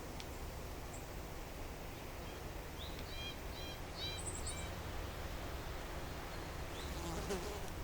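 A small bird calling: a quick series of about five short chirps about three seconds in, with a few thin, higher notes at the end of the series, over a steady outdoor hiss. A brief rustle comes near the end.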